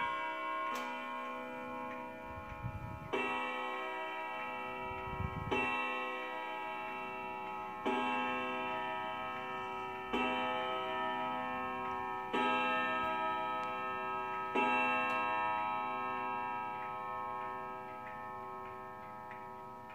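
Hermle triple-chime wall clock striking six o'clock: six ringing strokes about two and a half seconds apart, each one ringing on and slowly fading, after a fainter note about a second in. The pendulum ticks underneath.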